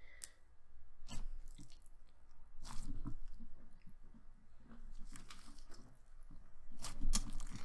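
Thick slime kneaded and folded by hand, a clay layer being worked into a clear slime base: irregular wet squishing with small pops and clicks, coming in clusters every couple of seconds.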